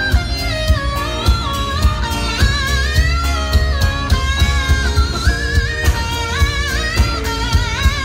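Live funk band playing, with a pedal steel guitar taking a sliding, wavering lead over drums and bass.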